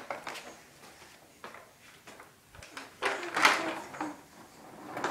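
Baby walker's plastic wheels rolling and rattling over a tile floor, with a few faint knocks and a louder clatter about three seconds in.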